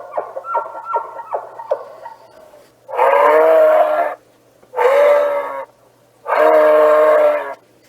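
Moose calling: a quick run of short grunts in the first couple of seconds, then three long drawn-out calls, each about a second, with short pauses between them.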